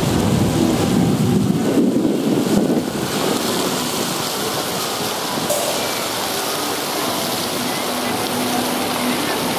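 Ground-level plaza fountain jets splashing onto wet paving, a steady rain-like hiss, over general city street noise. The street noise is a heavier rumble in the first three seconds.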